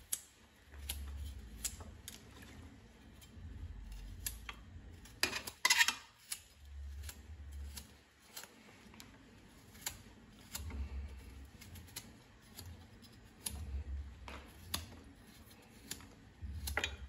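Kitchen knife slicing pieces of fresh coconut flesh held in the hand, a string of short crisp clicks and cuts at irregular intervals, with one louder scrape about six seconds in.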